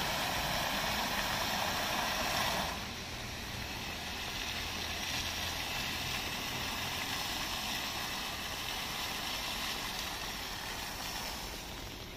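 Water jets of a plaza fountain splashing into the basin, a steady rush of water that drops in level about three seconds in.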